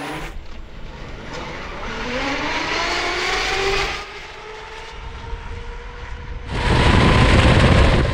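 Electric snowmobile accelerating from a drag launch: a motor whine rising steadily in pitch over about three seconds, with rushing track noise under it. About six and a half seconds in, a loud rushing noise lasts a second and a half and cuts off suddenly.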